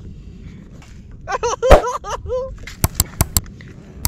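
A man's voice briefly over a low steady rumble, then four sharp clicks in quick succession, about five a second.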